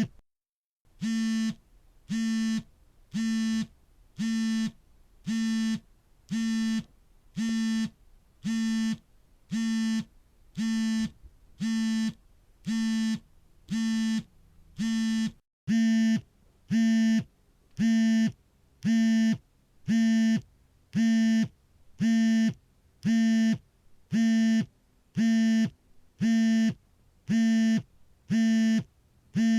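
A smartphone vibrating for an incoming call: the vibration motor buzzes in a repeating pattern of pulses, about one a second and each about half a second long. After a short break about halfway through, the buzzes are louder.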